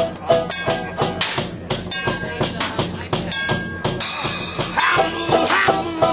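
Live band playing: a strummed banjo over a drum kit with a large bass drum, a busy, steady beat. Held notes that bend in pitch join in about four seconds in.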